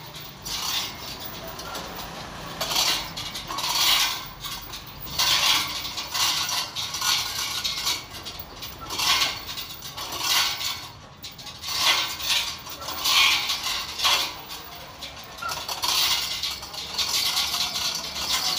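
Hand chain of a chain hoist clinking and rattling as it is pulled hand over hand, in repeated uneven bursts roughly one a second, while the hoist lifts a heavy machine.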